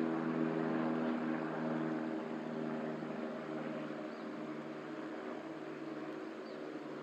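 Steady motor drone with a low, even hum of several tones, slowly fading away.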